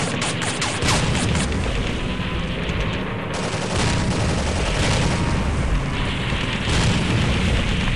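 Rapid paintball gunfire, several shots a second, over about the first second and a half, then dense rumbling noise on a helmet-mounted camera with scattered shots.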